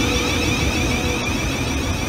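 OO gauge model electric multiple unit, a Bachmann Class 350 mechanism, running past close by on the track with a steady mechanical running noise.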